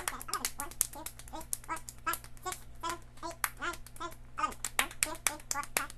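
Rapid hand claps and slaps of a two-person hand-clap game, several a second, played fast, with short bursts of young voices between the claps.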